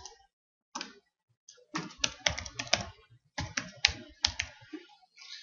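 Keystrokes on a computer keyboard as a password is typed, coming in short bursts of several quick clicks with brief pauses between them.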